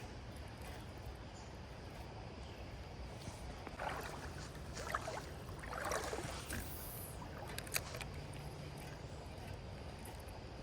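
Faint, steady noise of creek water, broken by a few short, sharp noises in the middle.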